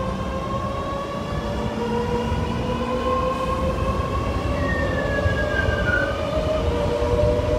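Electric train's traction motors whining over a low rumble of wheels on rail, the whine climbing slowly in pitch as the train accelerates, with one short falling tone partway through.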